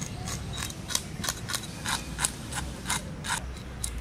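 Knife scraping the scales off a large raw hilsa fish, in short rasping strokes about three a second.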